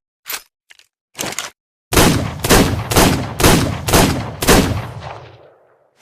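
Revolver sound effect: a few light mechanical clicks from the gun's action, then six shots fired about half a second apart, the echo fading out after the last.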